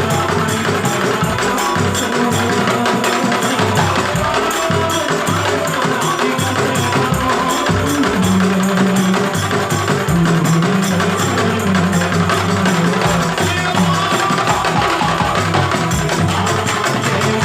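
Music with fast, busy percussion over a bass line.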